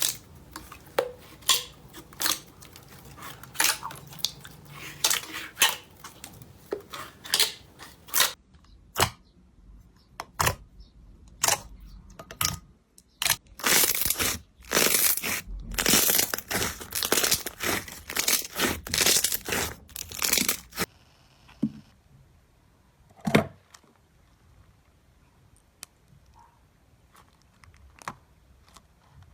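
Slime being squeezed and pressed by hand: a run of sharp pops and clicks, then dense crackling for several seconds, thinning to a few scattered clicks near the end.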